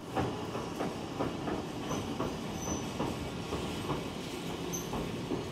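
Toyama Chihō Railway 16010-series electric train pulling slowly into a station, its wheels clicking irregularly over the rail joints over a steady rumble, with a few short high squeaks.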